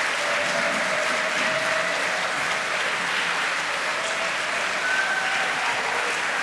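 Audience applauding steadily, with a few faint voices calling out.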